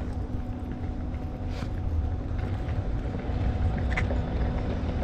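Low steady rumble of wind and distant city traffic on a handheld camera's microphone while walking over stone paving, with a few light footstep knocks and a faint steady hum underneath.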